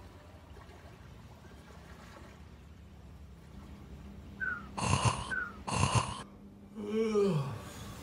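A gecko gives two loud, short calls about a second apart, each led by a quick falling chirp. Near the end comes a low, falling, sigh-like voice.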